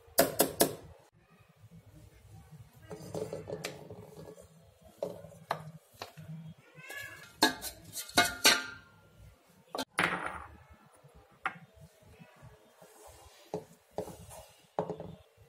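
A steel spoon scraping and clinking inside a stainless-steel mixer-grinder jar as a crumbly oats-and-jaggery mixture is scooped out. Then come sharp metal knocks and clanks with a short ring as the jar is knocked and emptied over a metal kadai. The loudest clicks come near the start and through the middle.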